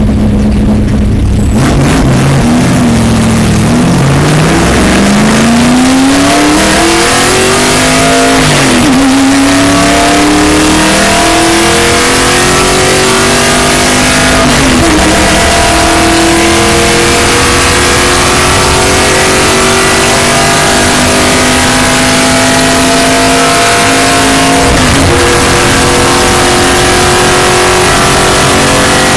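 NASCAR stock car's V8 engine heard from inside the cockpit, idling at first, then pulling away and accelerating hard: its pitch climbs, drops sharply several times at the gear changes, and then holds high and fairly steady at speed.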